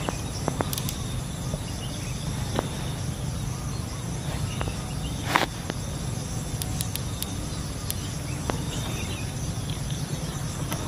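Rural outdoor ambience: insects chirping over a steady low rumble. A few sharp clicks come through, the loudest about five seconds in.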